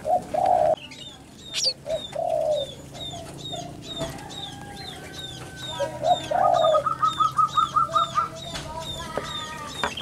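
Birds calling: a regular series of short high chirps, about three a second, with a few lower, longer notes in between and a brief fast trill of ticks near the end.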